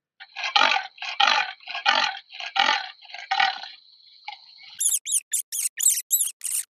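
Animal calls: five harsh, evenly spaced calls over a faint steady high tone, then, about five seconds in, a fast run of short high-pitched squeaks.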